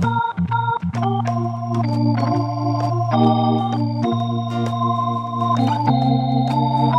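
Instrumental church music: an electronic keyboard plays sustained organ-toned chords over a held bass note, with a plucked string instrument adding short notes. The chord and bass change about six seconds in.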